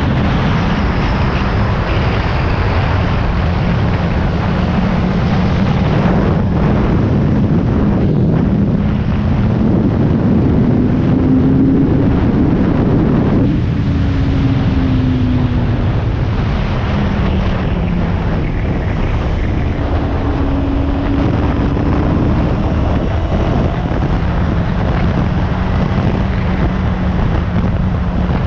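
Motorcycle engine running at road speed under heavy wind noise on the microphone. Its note climbs and falls back twice, about a third of the way in and again past the middle, as the throttle opens and closes.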